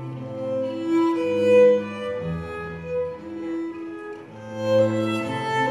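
Music of bowed strings, violin over cello, playing long held notes that change slowly, over a low sustained bass line.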